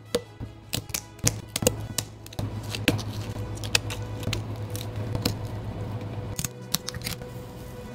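Kitchen knife tapping and scraping against a cutting board as it cuts through crustacean shell and meat, making sharp irregular clicks. Background music plays underneath.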